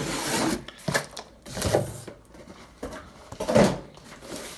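Cardboard box and packaging being handled and opened by hand: irregular rustling and scraping with a few short knocks.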